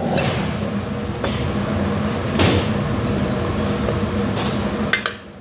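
Salad being tossed by hand in a stainless steel mixing bowl: a continuous rustling, rumbling scrape of the bowl and leaves. It stops abruptly about five seconds in.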